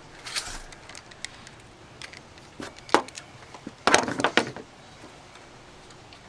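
Hand tools and loose metal parts knocking and clattering while work is being done on the engine. There are a few scattered knocks, one sharp one about three seconds in, and a short burst of clatter about a second later.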